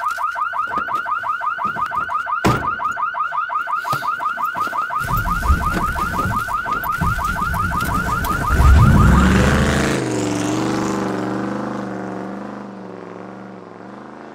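Electronic alarm warbling rapidly, about six cycles a second, in the manner of a car alarm. Midway a low rumble builds to a loud swell, and the alarm gives way to a low wavering drone that slowly fades.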